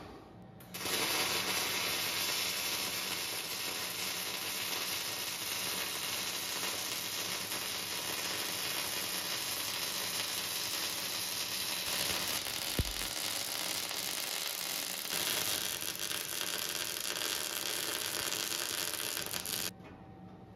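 Electric arc welding a run along a new steel wear edge on a loader bucket: a steady, dense crackle of the arc that starts about a second in and cuts off about a second before the end, with one short thump near the middle.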